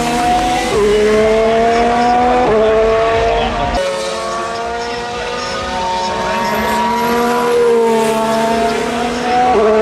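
Formula 1 car engine accelerating hard through the gears. Its high-pitched note climbs and then drops sharply at each upshift, about four times.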